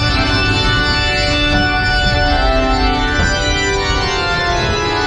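Organ music starts suddenly, playing sustained chords that change slowly, over a steady low rumble from the ride's moving ore-car train.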